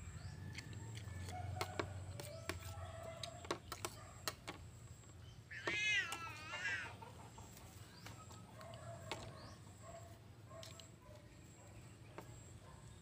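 A spoon clinking and scraping on a plate in scattered sharp ticks, and about halfway through one loud wavering animal call lasting a second and a half.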